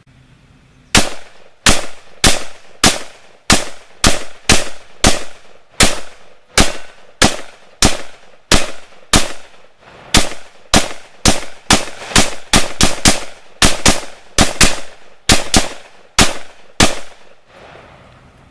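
Stag Arms AR-15 rifle in .223 firing a long string of about thirty-five rapid semi-automatic shots, two to three a second, each followed by a short echo. The shots begin about a second in and stop near the end, leaving the echo to die away.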